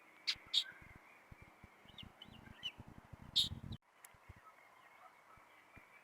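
Birds calling outdoors: two loud, sharp calls in quick succession, a few faint chirps, then another loud call about three and a half seconds in, over low thumps and rumble. The sound cuts out abruptly for a moment just before four seconds in.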